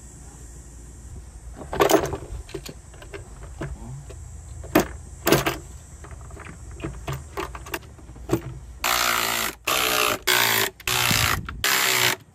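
Metal parts clinking and knocking as the intake manifold goes onto the 2.7L V6, then a small cordless power tool running in a series of short bursts, each about half a second, driving in the fasteners.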